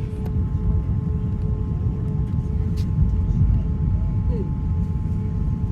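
Airbus A350-900 passenger cabin noise: a steady low rumble with a few constant hums from the aircraft's engines and systems.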